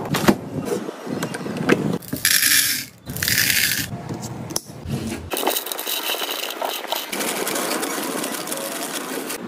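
Snack packaging rustled and set down, a plastic lid closed onto a jar of chocolate balls, then cornflakes poured from a foil-lined bag into a clear plastic canister, the flakes rustling and the foil crinkling steadily through the last four seconds.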